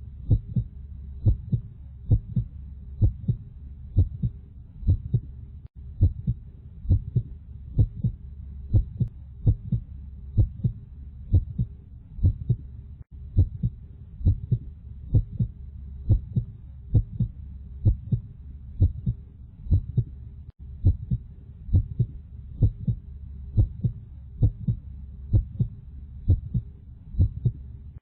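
Heartbeat sound, a steady lub-dub double thump repeating at an even pace over a low steady hum, with a brief gap every seven or eight seconds where the loop restarts.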